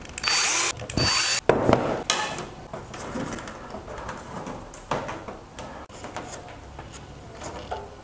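Cordless drill boring stitch holes through the plywood panels of a stitch-and-glue kayak hull, in two short bursts within the first second and a half. Then light clicks and rustling as copper wire stitches are threaded through the panel edges and twisted by hand.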